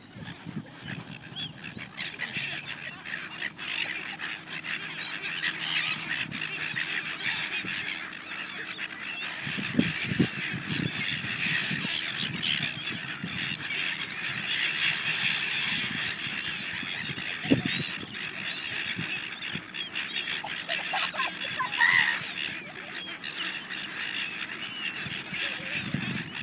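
A large flock of silver gulls calling over one another in a dense, continuous chorus of squawks and squeals that builds up over the first few seconds.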